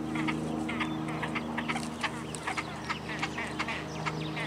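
Birds calling in a quick stream of short, varied chirps, several a second, over a steady low hum.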